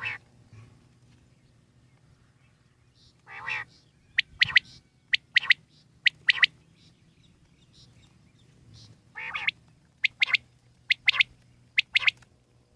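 Common quail singing: two bouts of song, each opening with a lower, longer note and followed by quick, sharp whistled notes in pairs, about three pairs per bout.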